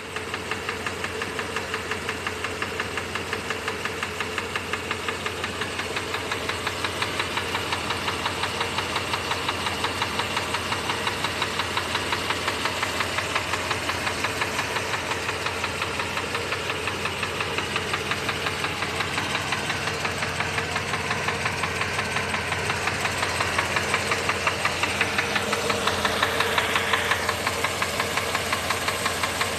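Mercedes-Benz W126 500 SEC's 5.0-litre V8 engine running steadily with a regular, rhythmic knock through it: the strange noise the owner is trying to trace.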